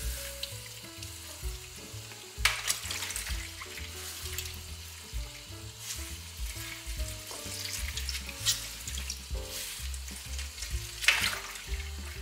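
Soft background music with short stepped notes over a steady bass. Four times, about three seconds apart, water splashes and drips as a soaked eggplant half is squeezed out over a bowl in the sink.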